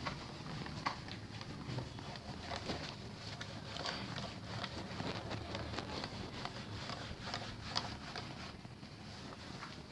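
Faint, irregular light taps and scratches over a low background hum.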